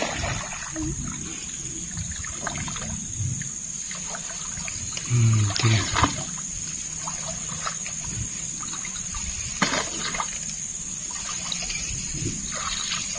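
Swamp water splashing and sloshing where a long bamboo pole stirs at a fishing line's floating plastic-bottle marker, with a few louder splashes along the way. A steady high drone of insects runs underneath.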